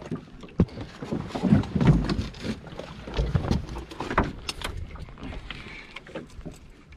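Irregular knocks and clicks of fishing gear being handled aboard a small boat, loudest around one and a half to two seconds in.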